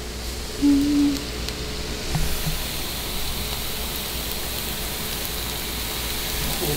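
Egg whites, sweet potato and spinach sizzling steadily in a nonstick skillet on low heat, louder from about two seconds in, while feta is crumbled in by hand. A brief low steady tone sounds about half a second in.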